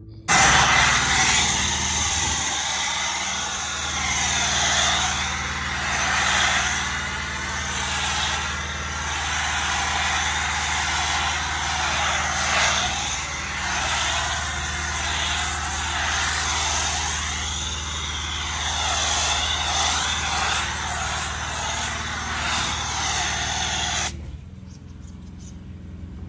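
Pressure washer spraying snow foam through a foam cannon: a loud, steady spray hiss over the low hum of the running pump. The spray cuts off suddenly near the end, leaving only a faint hum.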